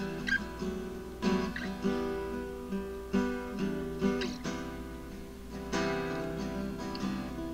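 Background music played on guitar, with plucked notes ringing out one after another.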